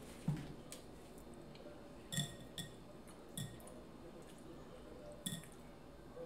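Light clinks against a glass bowl, about five at uneven intervals, each a short tap with a brief glassy ring.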